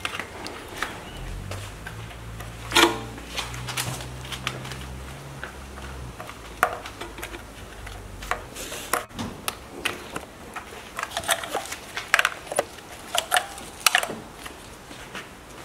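Scattered clicks and knocks of hands and a small tool working plastic wiring connectors and parts on an engine during teardown, with one louder clink with a short ring about three seconds in and a quicker run of clicks near the end. A low hum runs through the first half.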